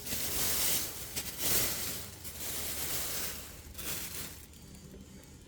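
Packing cushioning rustling and crinkling as it is handled and pulled away, in several bursts that die down about four seconds in.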